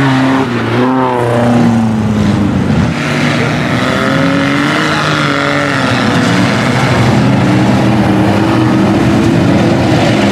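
Engines of lifted off-road mud trucks revving hard as they drive through deep mud, the pitch rising and falling repeatedly.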